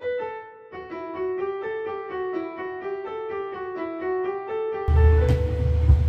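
Background piano music, a quick run of notes. About five seconds in, a loud low rumble and hiss cut in under it.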